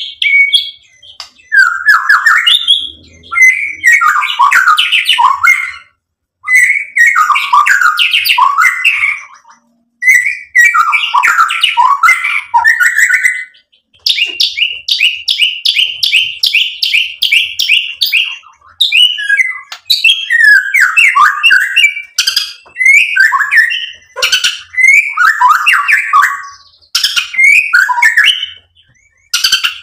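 White-rumped shama (murai batu) singing loud, varied phrases of whistles and chattering notes, broken by short pauses. Midway it delivers a run of evenly repeated notes lasting about four seconds.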